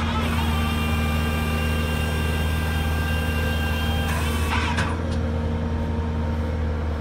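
Bobcat skid steer's diesel engine running steadily under load, with a steady whine from the Bradco HP600 cold planer's hydraulic drive that stops about four seconds in. A brief harsh burst comes about half a second later.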